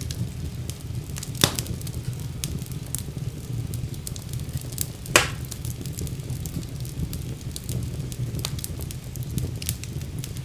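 Wood fire burning in a fireplace, with a steady low rumble of the flames and frequent small crackles, and two louder pops about a second and a half in and about five seconds in.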